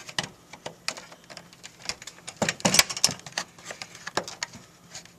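Irregular clicks, knocks and rattles of J-hook grille fasteners being turned by hand and pulled up over the lip behind a billet-style lower grille. A quick cluster of sharper knocks comes about halfway through.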